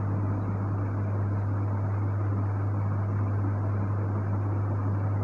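Steady low-pitched hum with an even hiss behind it: constant background room noise, without speech.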